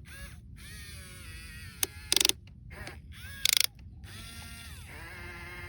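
Small geared electric motor of a toy excavator whining, its pitch rising and falling as it works. Two short bursts of rapid ratcheting clicks from its gears come about two and three and a half seconds in.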